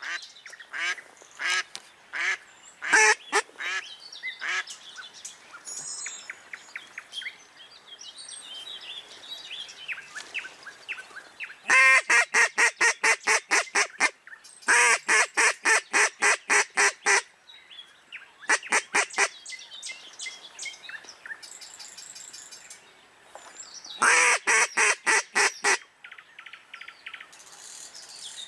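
Live decoy hen duck quacking in long, fast runs of evenly spaced quacks, several runs a few seconds apart; this is the decoy's calling that draws drakes in. Small birds chirp faintly in the gaps.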